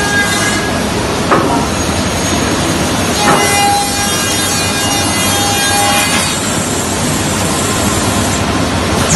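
Woodworking finger-joint line machinery running with a dense, steady clatter. A knock comes about a second in, and a second knock about a third of the way in starts a steady whine that stops about two-thirds of the way through.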